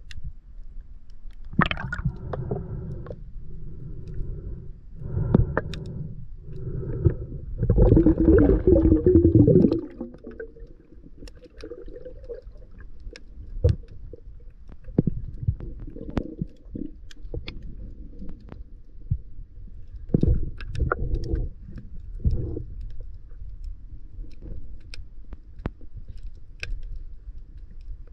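Underwater sound of a diver swimming: bursts of gurgling water and bubbles rushing past the camera housing, loudest about eight to ten seconds in and again near twenty seconds, with scattered sharp clicks in between.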